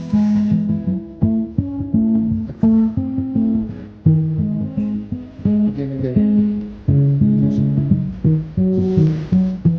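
Background music: a plucked guitar melody of short notes that start sharply and fade, played in a steady run.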